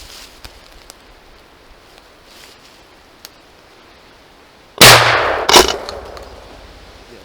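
Two gunshots about a second apart, each very loud and followed by a fading echo.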